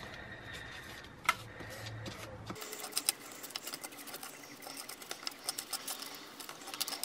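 A sugar cube rubbed and turned in dry ash on a sheet of paper, making gritty scratching with a quick run of small clicks. The clicks grow busier about two and a half seconds in.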